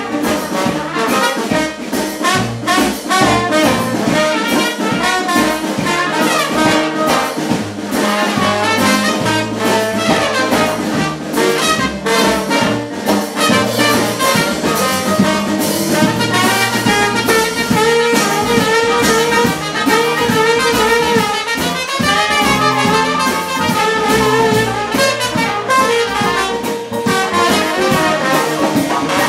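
Live jazz-blues band playing an instrumental passage: trumpet and trombone lines over a walking bass and drums, with no singing.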